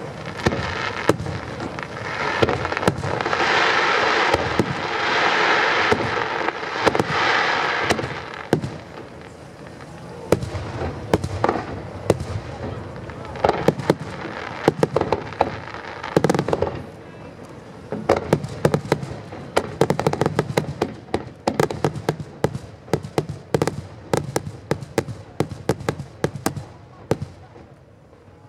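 Aerial firework shells bursting in a continuous run of bangs, with a dense rapid crackle of many small reports building in the second half.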